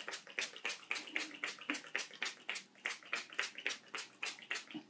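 Mario Badescu facial spray (aloe, cucumber and green tea) pumped in rapid succession from a fine-mist spray bottle, a quick hiss about four or five times a second, misting the face. The sprays stop just before the end.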